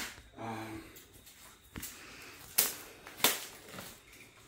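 Plastic packaging wrap being cut and pulled off by hand: a click, then three short sharp crinkles in the second half.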